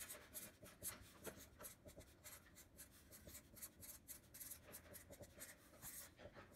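Sharpie permanent marker writing on a sheet of paper: a quick run of faint, scratchy pen strokes as letters are drawn.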